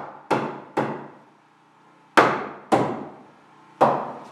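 Hammer blows on a tight-fitting wooden rough sill, driving it down between the wall studs of a window opening: five sharp strikes, two in quick succession, then after a pause three more, each ringing out briefly.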